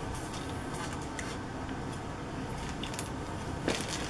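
A clear plastic bag being handled, with a soft crinkle and a few faint light clicks as plastic model sprues are moved inside it.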